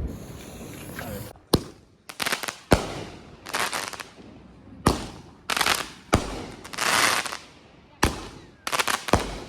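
Consumer fireworks going off: about six sharp bangs spread over nine seconds, each trailed by a hissing crackle.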